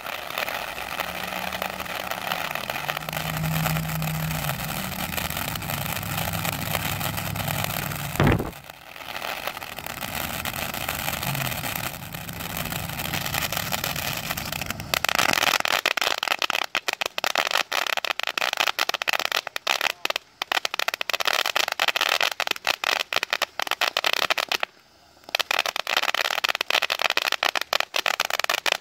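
Firework fountain (Major League Pyro "Wanna Play a Game") hissing steadily as it sprays sparks, with a single pop about eight seconds in. About halfway through it turns to dense, rapid crackling from its crackling-mine finale. The crackling drops out briefly once near the end before the fountain burns out.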